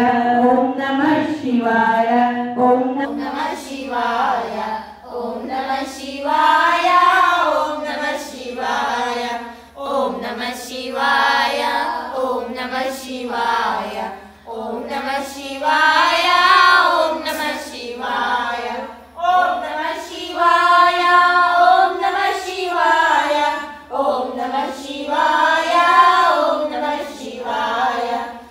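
A group of women singing a devotional song together in phrases that rise and fall, with sharp clicks here and there.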